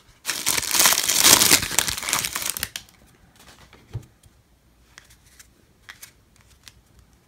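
Plastic card-pack wrapper crinkled and torn open, loud for about two and a half seconds, followed by faint ticks and light taps of cards being handled.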